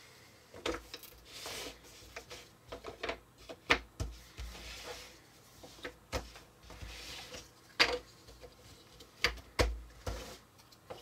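Jigsaw puzzle pieces being handled and pressed into a plastic puzzle-record tray: irregular light clicks and taps, with a few short stretches of rubbing and sliding.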